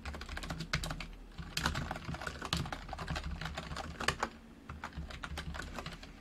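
Typing on a computer keyboard: quick runs of keystrokes, with a brief pause about four and a half seconds in.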